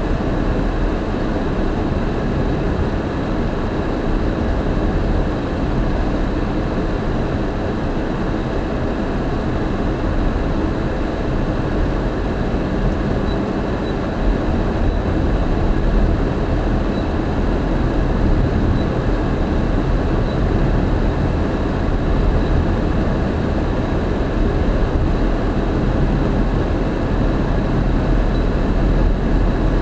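Steady road and engine noise of a car driving at moderate speed, heard from inside the cabin as a constant low rumble of tyres and engine.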